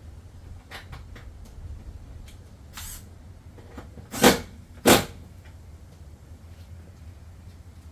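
Two loud, sharp knocks about half a second apart, a little past halfway, from handling hard parts during work in a car's cargo area, with lighter clicks and rustling before them.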